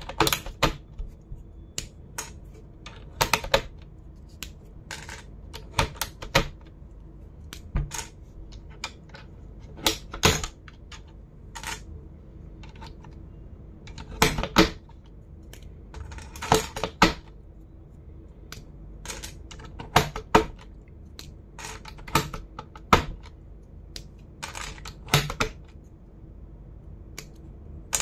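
Plastic computer keyboard keys clicking: irregular single clicks and short clusters of clicks with gaps between them, not continuous typing. A faint steady low hum runs underneath.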